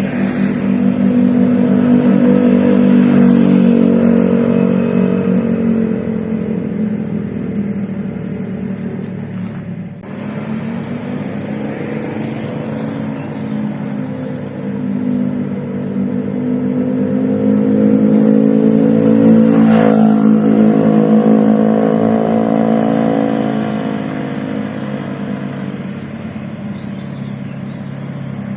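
Honda Vario 125 scooter's single-cylinder engine running through an aftermarket RMS Muffler Sport silencer while ridden on the road: the exhaust note swells and rises in pitch as it accelerates a couple of seconds in, eases off, dips sharply for a moment near the middle, then builds again about two-thirds of the way through before settling back.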